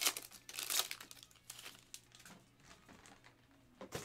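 Foil wrapper of a 2022 Topps Inception baseball card pack crinkling and tearing as it is ripped open by hand. The crackling comes in sharp bursts over the first two seconds, then fades to quieter rustles as the cards are slid out.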